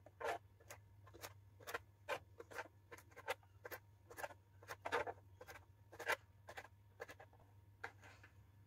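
Kitchen knife cutting tender moringa (drumstick) pods into small pieces on a cutting board: faint, crisp taps about two a second as the blade goes through each pod and meets the board, stopping near the end.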